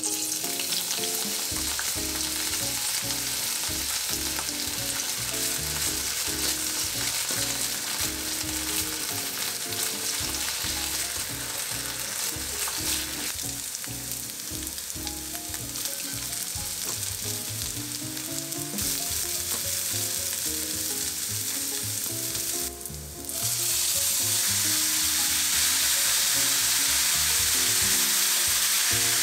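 Sweet potato and carrot sticks sizzling steadily in hot oil in a frying pan as they are stir-fried for kinpira. The sizzle dips briefly about three-quarters of the way through, then comes back louder.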